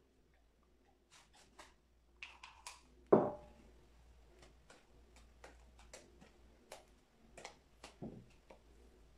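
Scattered light clicks and taps of a plastic spatula against a bowl and a metal cake ring while cream is spread between sponge layers, with one dull thump about three seconds in and a softer one near the end.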